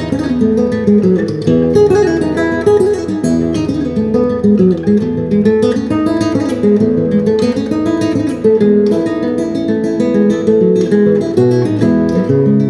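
Acoustic guitar playing an instrumental piece: a quick, steady run of picked melody notes over a bass line, without pause.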